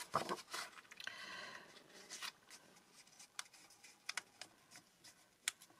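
Paper sheets rustling and sliding as they are handled, then a few separate light clicks as punched pages are pressed onto the plastic discs of a disc-bound book.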